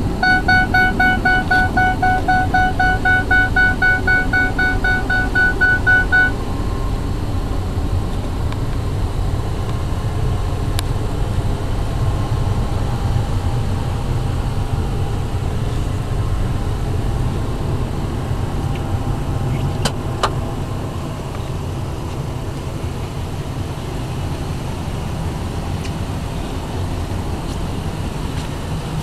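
A Ford E-350's dashboard warning chime dings about three times a second for six seconds, then stops. Underneath, the truck's 5.4-litre V8 idles steadily with a low rumble, and there is a single sharp click about twenty seconds in.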